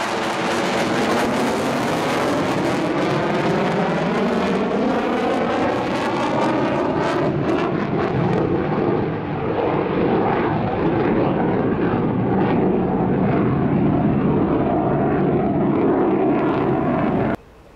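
The twin turbofan engines of a Mitsubishi F-15J fighter jet making a loud, steady jet noise as it manoeuvres overhead. The first half has a sweeping, phasing whoosh as the jet passes; then the sound turns duller as it moves away, and it stops abruptly near the end.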